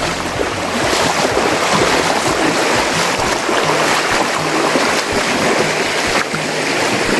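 Shallow, rocky river rushing over stones: a steady water noise.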